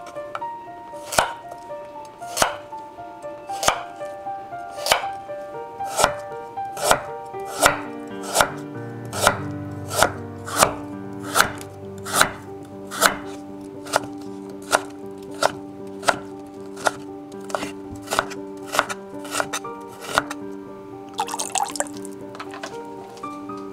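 Global chef's knife cutting through carrot and then burdock root and striking a wooden cutting board: regular knife strokes, about one a second at first and quickening to nearly two a second partway through. A short splash of liquid near the end.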